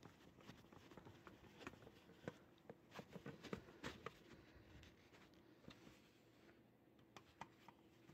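Faint scraping and clicking of a flathead screwdriver working the small screws in the metal back panel of a Pioneer VSX-3000 stereo receiver. The clicks are irregular and come thickest about three to four seconds in.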